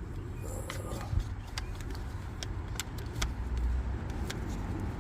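A hand clamp being squeezed against a stuck brake caliper piston to force it back into its bore, giving a series of sharp, irregular clicks over a steady low rumble.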